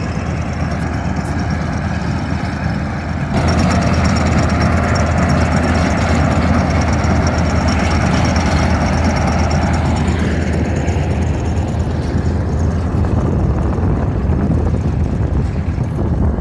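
Self-propelled windrower running steadily while it mows alfalfa: a constant engine hum under the noise of the cutting header. It gets louder about three seconds in as the machine comes close, and eases off somewhat after about ten seconds.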